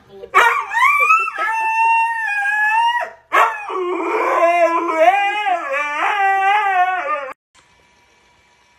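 Cat yowling: two long, drawn-out calls, the first rising and then held, the second wavering up and down in pitch, stopping about seven seconds in.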